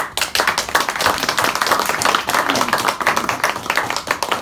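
A small group clapping in applause at the end of a speech, starting abruptly and dying down near the end.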